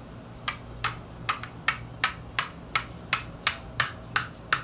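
A hammer tapping on the end of a screwdriver to drive it through a coconut shell and punch a vent hole: about a dozen sharp, evenly spaced knocks, roughly three a second, starting about half a second in.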